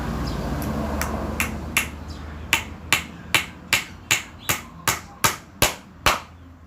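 Hammer driving a nail into the wooden stand: about a dozen sharp, evenly spaced blows, two to three a second, starting about a second in and stopping about six seconds in.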